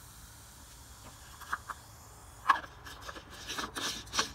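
Cap being handled and screwed onto the supercharger intercooler coolant reservoir: a few light clicks, one sharp click about two and a half seconds in, then a run of scraping and rubbing as the cap threads on.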